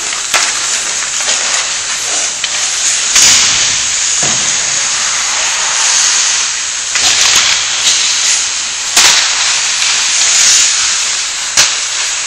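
Ice hockey play on an indoor rink: a steady hiss of skate blades on the ice, broken by several sharp clacks of sticks and puck, the loudest about three seconds in, about nine seconds in and near the end.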